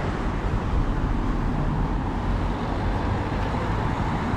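Street traffic noise: a steady rush and low rumble of passing vehicles.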